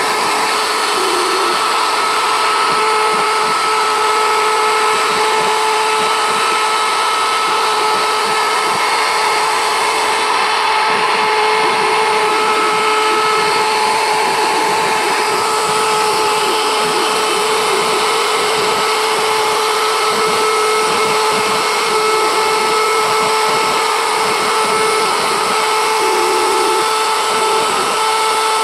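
CNC router spindle running steadily with a high whine while its pointed engraving bit carves lines and lettering into a board.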